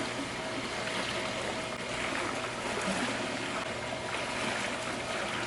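Fountain water splashing and running steadily.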